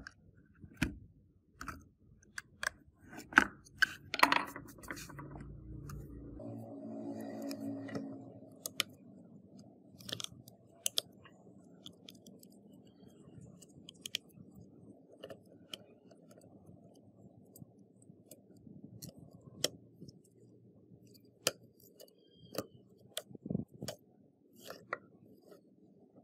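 Irregular sharp clicks, crackles and scrapes of brittle burnt plastic, ash and dry husks as a fire-damaged radio's circuit board and wiring are pried out of its charred casing, with a cluster of crunches in the first few seconds.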